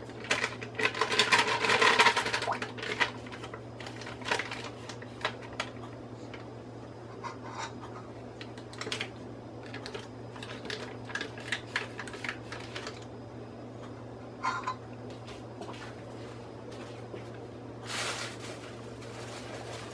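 Kitchen handling sounds: rustling and scattered clicks and taps as a stick of butter is unwrapped and put into a stand mixer's steel bowl and hands work at the mixer. The busiest rustling comes about a second in and again near the end, over a steady low hum.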